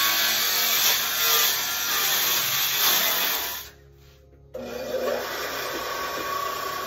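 Cordless circular saw cutting through butcher block. After a brief break a little under four seconds in, a quieter steady rasping of the wooden tabletop being cut and worked toward a round shape.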